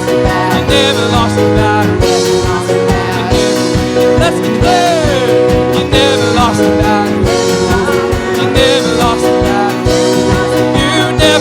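Worship band music with a steady drum beat under sustained chords, and a singer holding wavering notes without clear words.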